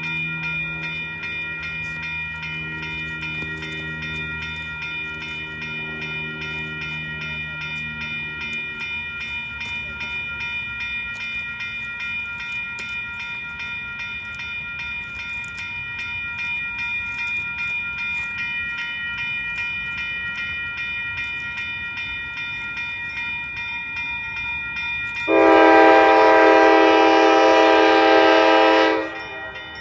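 An approaching diesel freight locomotive, its low engine rumble fading over the first few seconds, then a multi-chime air horn blown in one long blast of about four seconds near the end, the loudest sound. A steady bell-like ringing with quick, regular strikes runs underneath throughout.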